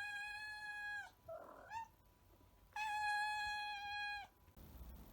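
Black cat giving two long, drawn-out yowls at a steady pitch, the second starting nearly three seconds in, with a brief rough sound and a short rising chirp between them: a cat's warning call over food.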